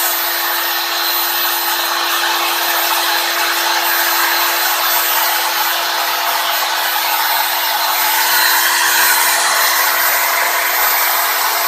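High-Z CNC-STEP milling machine cutting a front panel, its spindle running steadily with a constant whine under a steady hiss from the coolant mist nozzle.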